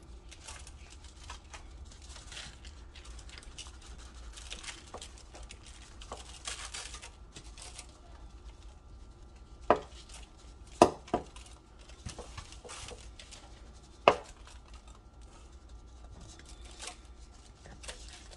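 Kitchen handling noises as brown sugar is put onto seasoned turkey legs and wings: light rustling and scraping throughout, with four sharp clacks in the second half, two of them close together.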